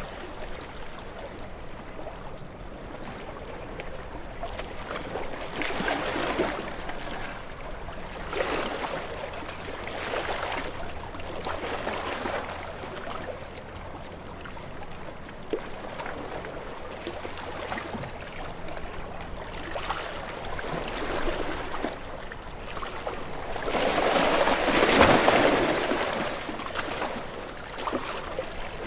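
Small waves washing onto a shore, each one swelling and falling away every few seconds, with one larger wave near the end.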